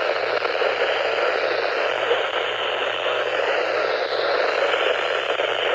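Weather radio receiver hissing with steady static, a thin band of noise over a faint low hum, with no voice coming through.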